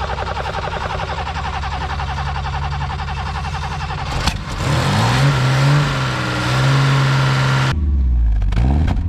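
Vintage car engine running steadily. About four seconds in, an engine is revved, its pitch rising and falling. Near the end the sound changes abruptly to a deep low rumble.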